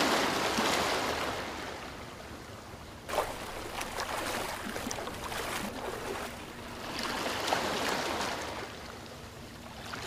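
Water rushing and splashing in surges that swell and fade, with a sudden burst about three seconds in.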